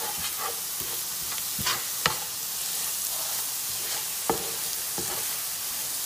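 Sliced onions with ginger, garlic and green chillies frying in ghee and oil, sizzling steadily while a spatula stirs them. A few sharp knocks of the spatula against the pan come about two seconds in and again past four seconds.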